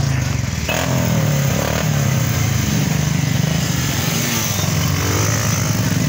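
Motorcycle engine running steadily, with a low pulsing note that wavers slightly in pitch, over a hiss of wind or road noise.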